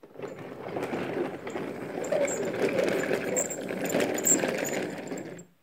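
Wooden toy train, engine and coaches, pushed by hand along wooden track: a continuous rolling clatter of wooden wheels over the track that cuts off suddenly near the end.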